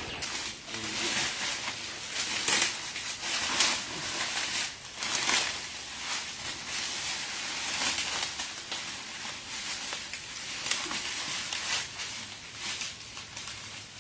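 Footsteps crunching and rustling through dry leaf litter and twigs on a forest slope, as a series of irregular crackles and brushes.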